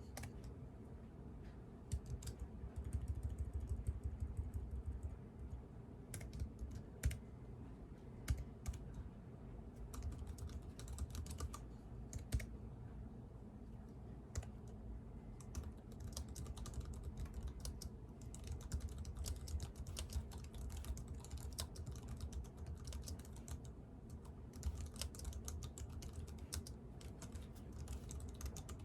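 Typing on a computer keyboard: irregular runs of rapid key clicks with short pauses between them, over a faint steady low background noise.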